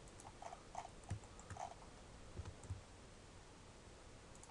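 Faint, irregular clicks of a computer mouse and keyboard being worked, a handful of short clicks and soft taps over quiet room hiss.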